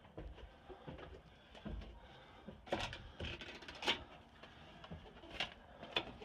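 Scattered clicks and knocks as the lever handle and latch of a metal door are worked and the door is opened, with four sharper clicks in the second half.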